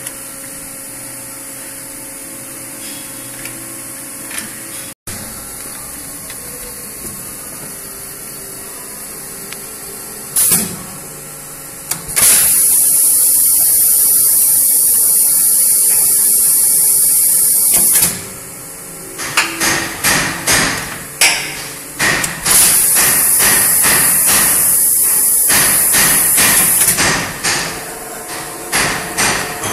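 Valve seat cutting machine milling a cylinder head's valve seat: a steady motor hum, then two long spells of loud, harsh, high-pitched metal cutting as the cutter bites into the seat. Short bursts of cutting come between and after them as the cutter is fed on and off.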